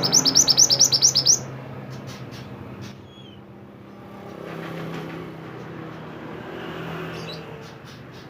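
A mantenan songbird singing a rapid run of about ten sharp rising high chirps that stops about a second and a half in, followed by a few scattered faint chirps. A steady low rumble of background traffic runs underneath.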